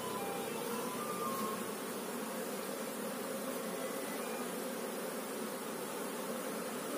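Steady buzzing of an opened Apis cerana (Asian honey bee) colony as its frames are handled.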